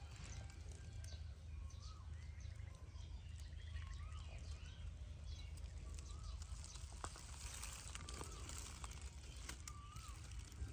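Short, high chirping animal calls, each rising and falling in pitch, about one every second or two, over a steady low hum, with a few faint clicks.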